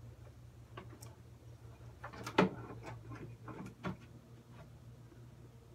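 Scattered light knocks and clicks of someone handling things in the room, with one louder knock about two and a half seconds in, over a steady low hum.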